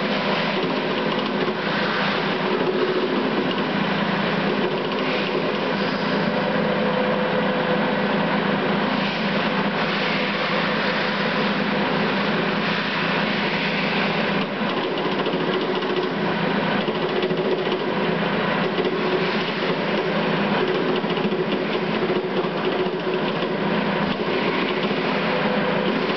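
Motor-driven metal trimming machine running steadily under operation: a continuous fast mechanical chatter over a steady motor hum.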